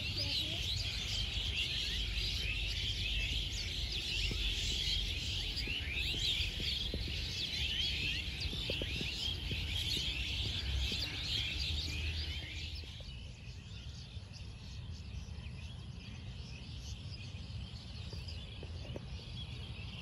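A big flock of birds calling together in dense, overlapping chirps, which thin out and drop in level about twelve seconds in. A steady low rumble runs underneath.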